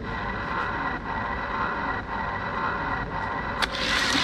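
Die-cast toy cars rolling down a plastic gravity drag-race track, their wheels giving a steady whir, ending in a sharp clack near the end as they reach the finish.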